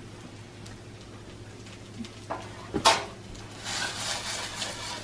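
Two sharp knocks, such as a utensil against a pan, then sliced meat sizzling in a stainless frying pan from about three and a half seconds in, over a faint steady hum.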